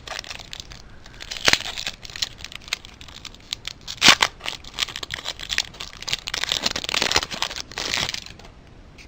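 Foil wrapper of a Yu-Gi-Oh booster pack being torn open and crinkled in the hands, with sharp crackles, the loudest about four seconds in, then falling quiet near the end.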